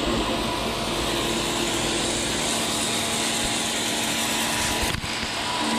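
Bosch Aquatak 125 electric pressure washer running steadily, its motor humming under the hiss of the water jet striking a wall, with a brief drop about five seconds in.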